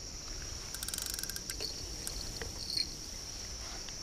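Insects chirring in a steady, high-pitched chorus, with a short run of rapid clicks about a second in.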